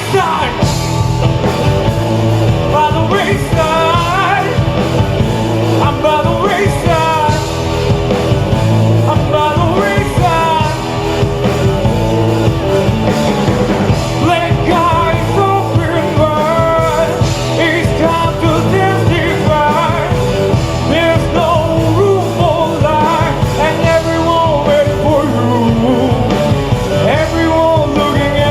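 Rock band playing live, with drums, bass, electric guitar and keyboard, and singing over the music.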